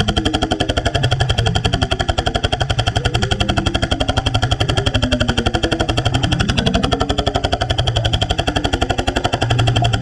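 BR45 45-lb hydraulic jackhammer running underwater, hammering steadily at a very rapid rate as it chips concrete.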